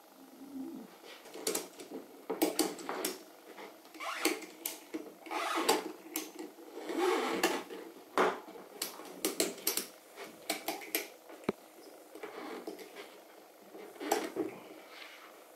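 Ratchet straps being cinched around a wooden cabinet box: nylon webbing rubbing and sliding through the buckles, with many irregular sharp clicks and clacks of the metal ratchet buckles being worked.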